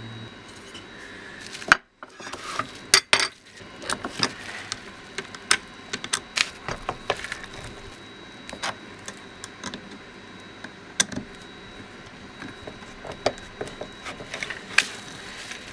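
Scattered light clicks and knocks of a screwdriver and small plastic parts being handled and set down on a wooden workbench, with a couple of sharper knocks around two and three seconds in.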